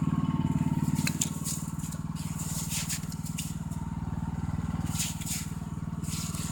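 Snowblower engine running steadily with a fast, even putter, dropping a little in level about a second in. Short scraping crunches sound over it now and then.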